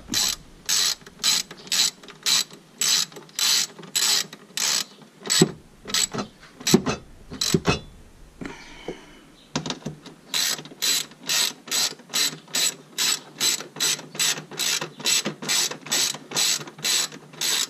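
Socket ratchet wrench clicking in steady back-and-forth strokes, about two to three a second, with a few heavier knocks around six to seven seconds in and a short pause about eight seconds in before the ratcheting resumes.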